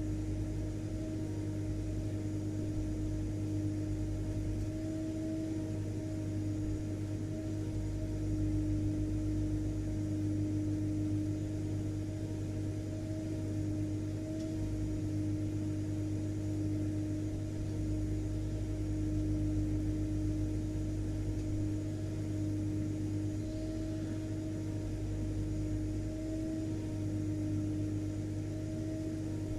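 Vacuum cleaner running continuously, a steady drone with a low hum and a held mid-pitched tone, unchanging in pitch and level.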